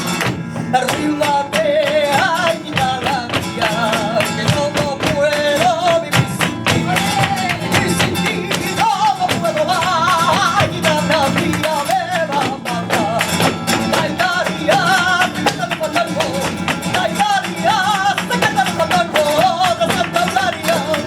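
Live flamenco fandango music: guitar under a wavering melody line, with quick sharp percussive strikes throughout.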